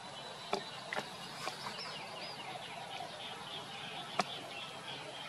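Birds chirping and twittering in a steady outdoor background, with a few sharp clicks, one about half a second in, another at about one second and a louder one about four seconds in.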